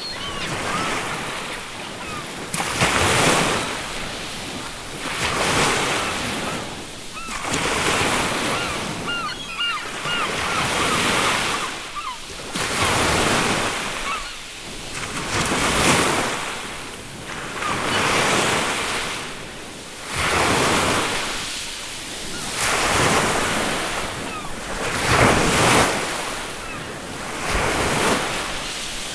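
Ocean surf breaking in repeated surges, each wave swelling and falling back every two to three seconds. Seagulls give a few short calls near the start and again about ten seconds in.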